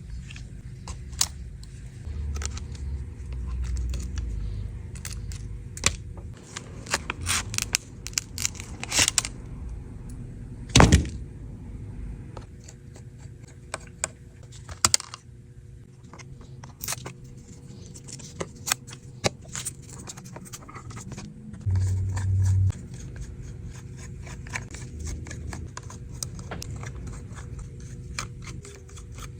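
Hands-on work with small tools and parts on a damaged MacBook: many irregular small clicks, taps and scrapes, with one louder knock about eleven seconds in.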